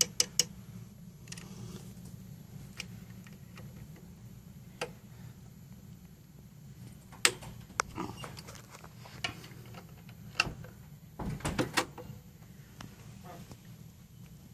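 Scattered light clicks and taps of hand work on the clamp-height bar inside a JACK JK-T1900-series tacker's head, with an Allen wrench, over a steady low hum. A few come close together at the start and a quick cluster comes a little past the three-quarter mark.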